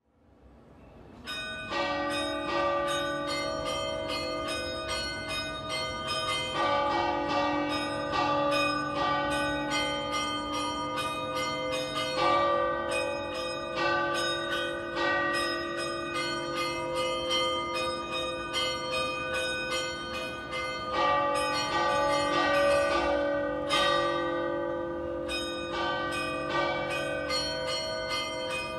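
Three tower bells, the big bell cast in 1878 by Pasquale Mazzola and the two smaller ones cast in 2015 by De Poli, rung festively in a set keyed to D-flat and not tuned to a scale. The ringing fades in during the first second or so, then strike follows strike with the tones ringing on over one another.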